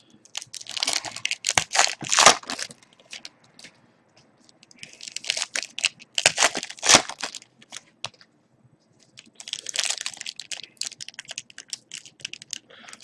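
Foil wrappers of Panini Contenders football card packs being torn open and crumpled by hand, crinkling in three bouts a few seconds apart.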